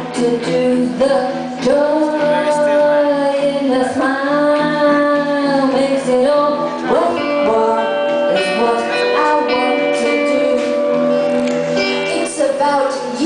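A woman singing long held notes, some gliding in pitch, over live guitar accompaniment.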